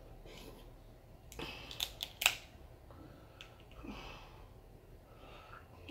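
Close-miked eating: a cluster of sharp mouth clicks and smacks while chewing seafood gumbo, loudest a little past two seconds in, with fainter chewing around it.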